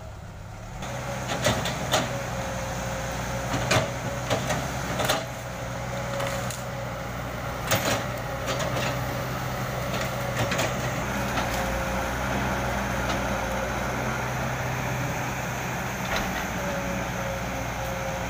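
Caterpillar hydraulic excavator's diesel engine running steadily with a steady whine, while the bucket works through brush and stumps, giving sharp cracks and knocks of wood several times in the first half.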